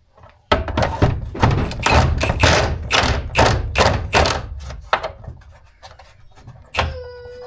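A fast run of heavy knocks and thuds, about four a second, lasting a few seconds, then trailing off. A short pitched tone comes near the end.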